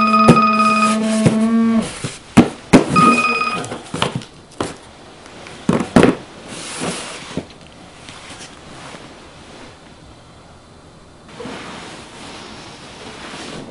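An electronic buzzer or ringer sounding a steady tone with a higher beep over it, cut off about two seconds in. Then come a few sharp knocks and clunks, a brief beep again, and quieter handling sounds.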